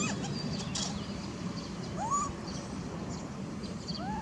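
Outdoor animal calls: short squeaky calls that rise and fall back, one about two seconds in and another near the end, with faint high chirps and a steady low hum behind them.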